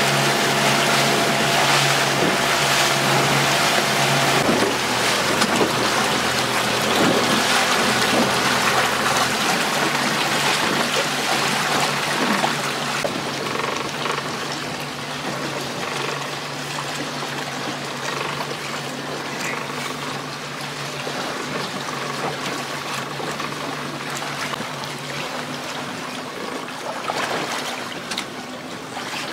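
A small fishing boat's engine running steadily under way, with water rushing along the hull and wind on the microphone. The engine note changes about ten seconds in, and the rush of water and wind eases soon after.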